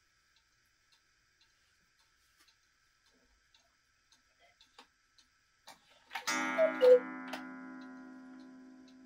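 Mechanical Black Forest 8-day cuckoo clock ticking softly, then a few clicks from the movement as the minute hand is turned. About six seconds in the gong strikes once with a single two-note cuckoo call, falling in pitch, and the gong rings on and slowly fades.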